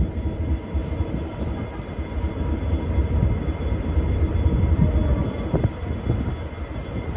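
Diesel engines of a V/Line VLocity diesel multiple unit running, a steady low rumble with a faint steady whine above it.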